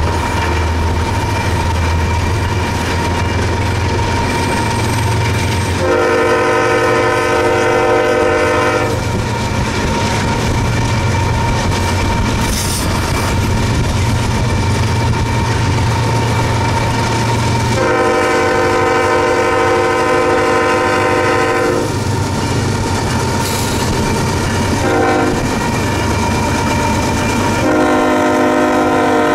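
Norfolk Southern diesel locomotive's chord horn sounding the grade-crossing signal: two long blasts, a short one, then a long one, each several tones at once. Under it runs the steady low rumble of the freight train rolling alongside.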